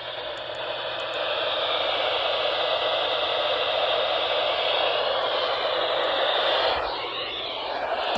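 Radio receiver static: a steady hiss with no voice or tone coming through. It swells early, then dips briefly about seven seconds in.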